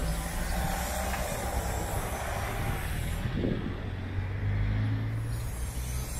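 Motor vehicle engine running nearby on the street: a low steady hum over road noise.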